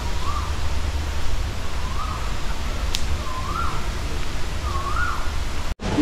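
A bird calling four times, each call a short whistled note that rises and falls, about every second and a half. Under the calls runs a steady rushing noise with a low rumble. The sound cuts out briefly near the end.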